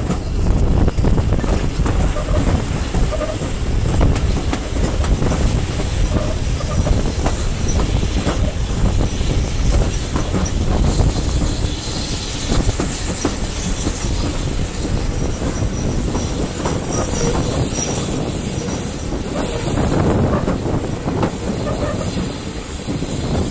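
Heritage passenger train carriages running along the line, heard from an open carriage window: a steady rumble of wheels on rail with repeated clicks over rail joints, and wind noise.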